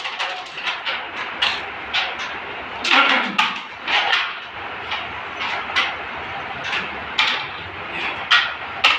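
Sharp, irregular wooden clicks and clacks of carrom strikers hitting pieces, about one or two a second, with a busier burst a few seconds in.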